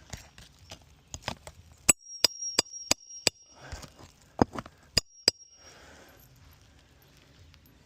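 Hammer driving roofing nails into an asphalt shingle: a run of sharp blows, a few a second, in two bursts, several with a high metallic ring.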